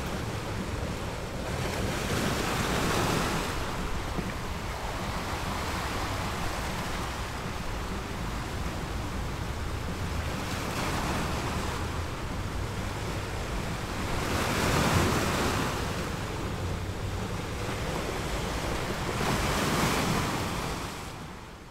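Sea waves washing onto the shore in slow surges that rise and fall every few seconds, with wind. The sound fades out at the end.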